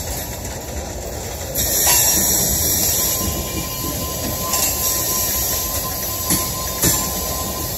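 Loaded coal cars rolling past, their steel wheels grinding and squealing against the rail. The noise gets louder and hissier about two seconds in, and a thin steady squeal tone holds through the middle. A couple of sharp knocks come near the end.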